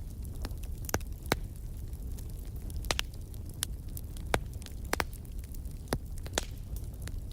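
Wood fire crackling in a fireplace: scattered sharp pops and snaps, about one or two a second, over a steady low rumble of the flames.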